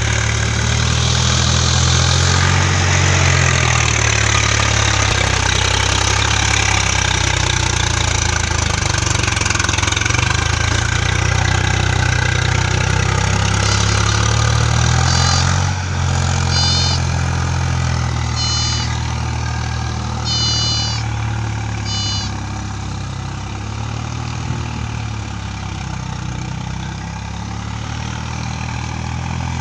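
Tractor diesel engine running steadily as it ploughs a flooded paddy field on iron cage wheels. It is loud at first and quieter in the second half as the tractor moves away. A few short, high chirps come in quick clusters about midway.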